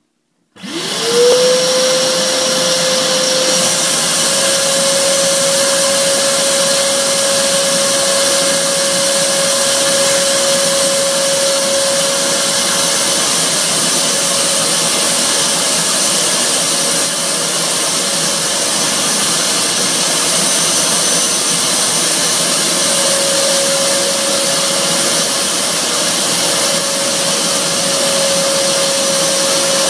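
Vacuum cleaner switching on about half a second in, its motor whine rising quickly and then running loud and steady as it sucks the air out of a vacuum storage bag holding a duvet.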